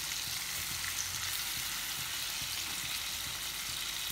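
Masala-coated rohu fish steaks sizzling steadily in hot oil in a frying pan as they are turned over with a metal spatula.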